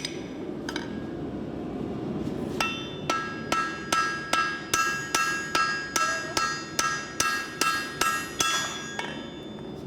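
Steady ringing blows of an axe used as a forging hammer on hot steel over an anvil, starting about two and a half seconds in and running at roughly three strikes a second for about six seconds, after two lone strikes at the start. A steady low rushing noise runs underneath.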